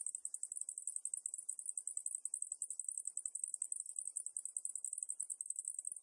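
Cicadas singing: a continuous high-pitched buzz that pulses rapidly without a break.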